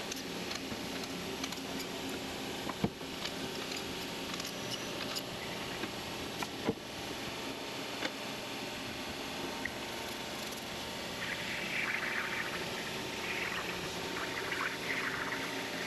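Steady machine-shop hum with a few sharp clicks in the first half. From about eleven seconds in, hands rub and swish across the mill's table as it is wiped down.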